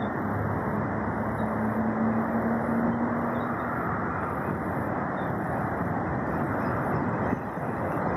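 Steady road and vehicle noise with a low engine hum, strongest in the first half.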